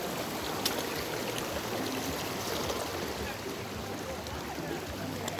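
Steady rushing of a flowing stream, with a couple of sharp clicks.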